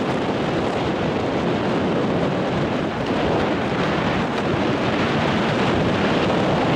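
Steady rush of wind buffeting the camera's microphone as a tandem skydiving pair glides under an open parachute close to landing.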